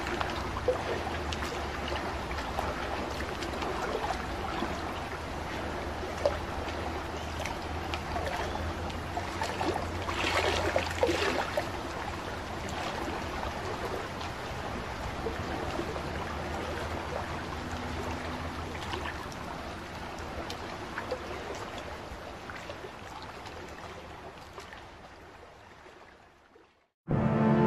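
Sound effect of rushing, sloshing water, like the sea, over a steady low rumble. It fades out near the end.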